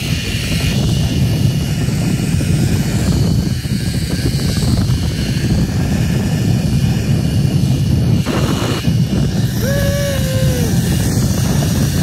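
Loud, steady rumble of wind buffeting the microphone during a zip line ride. About ten seconds in, a brief held tone rises above it and falls away.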